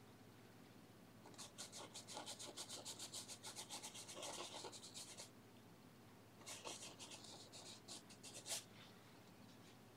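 Paintbrush scrubbing oil paint onto textured canvas in quick back-and-forth strokes, about five a second. A run of about four seconds is followed, after a short pause, by a shorter run that ends with one sharper stroke.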